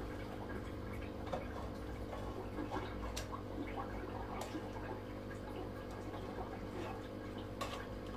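Brine trickling and dripping from a stainless steel basin into a glass jar of mango pickle, with a few light clicks, over a steady low hum.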